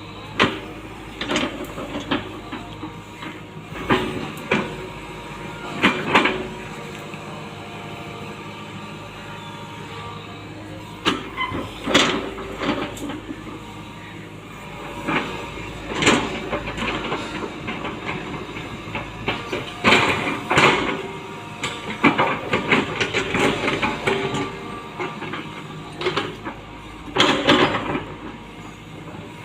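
Hitachi Zaxis 120 excavator running steadily, with frequent clanks and scrapes of the bucket and linkage as it digs.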